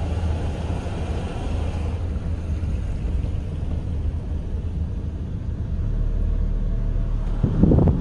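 Car driving slowly, a steady low engine and road rumble. It turns louder and rougher about half a second before the end.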